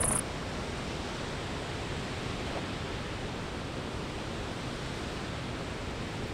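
A steady, even rushing noise with no distinct events. It begins with an abrupt cut that ends a high insect buzz.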